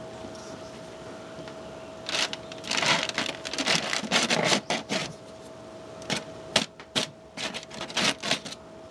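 Knife cutting into the puffed aluminium-foil dome over freshly popped popcorn: irregular crinkling and tearing of foil that starts about two seconds in and goes on in bursts, over a faint steady hum.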